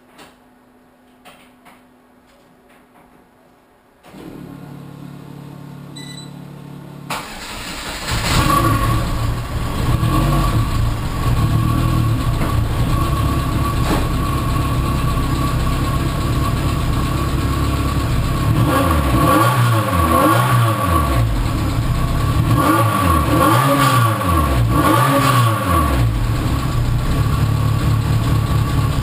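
A Lotus Elise S1 with a 996 exhaust starting up: a few small clicks, then a steady hum for about three seconds, then the engine cranks, catches and settles into a steady idle. In the second half the throttle is blipped several times, the exhaust note rising and falling.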